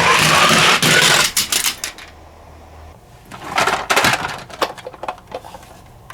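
Toy minicars rolling fast along a track: a loud rushing whir with a rising pitch in the first second, then a string of light clicks and clatters, with a second short rolling rush about halfway.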